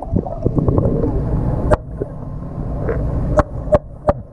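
Underwater sound: a low, steady rumble of moving water, broken by a few sharp clicks, one about a third of the way in and three close together near the end.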